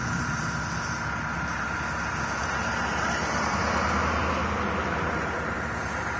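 Steady vehicle engine and road noise, with a car passing close by about four seconds in, its rumble swelling and then fading.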